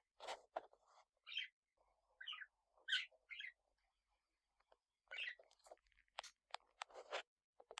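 Small parrots softly chirping a few times, then a quick run of sharp clicks and cracks like beaks husking seeds.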